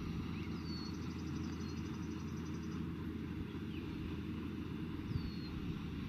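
Rural King RK55 diesel tractor running steadily as it pulls a Case 3450 round baler through the hay. A few short high bird chirps sound over the engine's hum.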